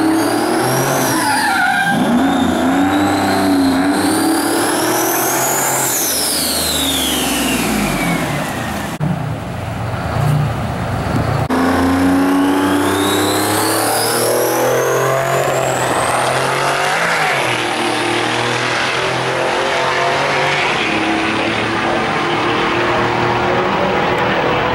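Diesel semi truck at a drag strip start line, revving hard with a high turbo whine that rises and falls twice. After a short lull near the middle, the whine climbs long and steady as the truck launches, and the engine keeps running flat out down the strip.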